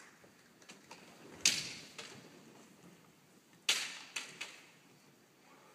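Sharp cracks and knocks from a kendo bout: two loud strikes about two seconds apart, the second about two thirds of the way in and followed quickly by a couple of smaller clacks, each echoing briefly in a large hall.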